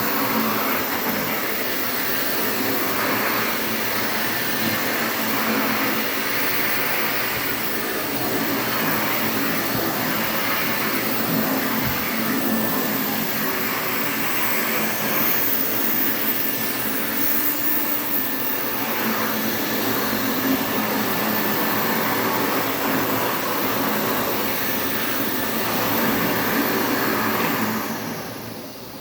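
Interstate Compact C6 vacuum cleaner running with a steady whirring hum. Near the end it is switched off, and the motor winds down with a falling whine.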